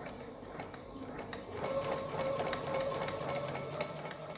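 Sewing machine stitching slowly: the needle and bobbin hook click about three times a second over the motor's hum, getting louder about a second and a half in.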